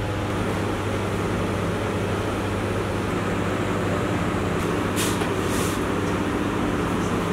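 Steady low mechanical hum of kitchen machinery running, with a couple of brief soft rustles about five seconds in.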